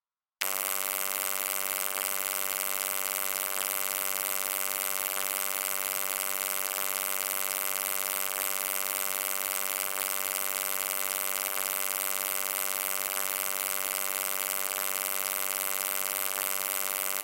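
Low electric hum, steady and buzzy with a hiss above it. It starts suddenly just after the beginning and cuts off abruptly at the end.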